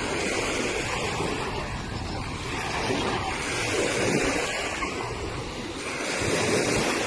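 Sea of Azov waves washing onto the shore in a steady surf noise, swelling louder with a wave about four seconds in and again near the end, with wind on the microphone.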